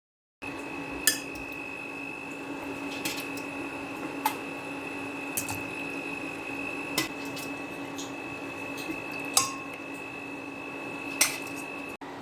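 Dishes and cutlery clinking: about seven separate sharp clinks a second or two apart, over a steady hum with a high whine. The hum and whine stop just before the end.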